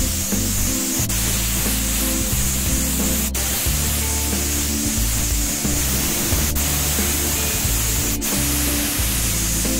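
Aerosol spray paint can hissing steadily as green paint is sprayed onto a die-cast toy truck part, with a few momentary breaks. Background music with a bass line plays under it.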